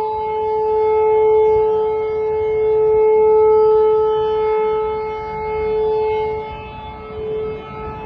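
Civil defense siren sounding one steady, unchanging tone, its loudness slowly swelling and fading, then growing fainter and wavering near the end. It is a scheduled test of the public warning system.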